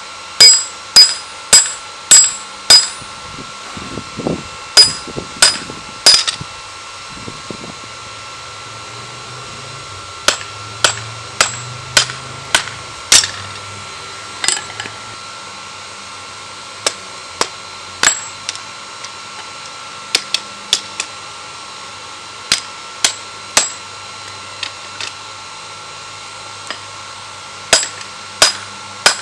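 Hammer blows on a red-hot steel spear head lying on a small round anvil, forging the blade. The blows come in runs of several, about two a second, with pauses between, and each strike gives a short metallic ring.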